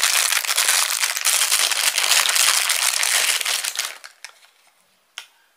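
Thin clear plastic bag crinkling continuously as a watch is pulled out of it, stopping about four seconds in. A single short click follows near the end.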